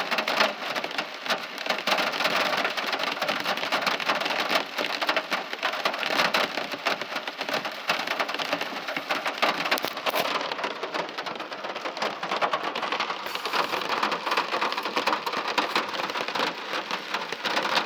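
Heavy rain falling steadily on a surface, a dense patter of many drops without let-up.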